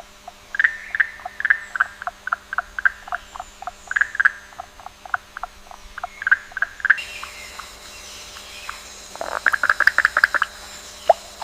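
Frogs calling: a quick run of short chirps, with a denser burst of calls about nine seconds in. A faint steady high tone joins about seven seconds in.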